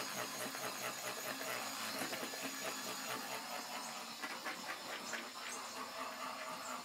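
Electric hand mixer running steadily, its beaters whirring through cream cheese and butter in a stainless steel bowl, with quick irregular clicks of the beaters against the bowl.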